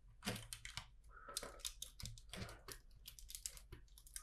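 Small plastic LEGO pieces clicking as tiles are picked up and pressed onto the model: a quick, irregular run of faint clicks.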